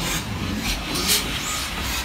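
GWR 5205-class 2-8-0 tank steam locomotive No. 5239 'Goliath' moving off slowly, its exhaust beating in hissing chuffs about twice a second over a low rumble.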